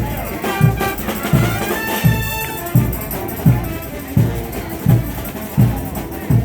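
Frevo music with brass horns over a bass drum beating steadily, about three strokes every two seconds.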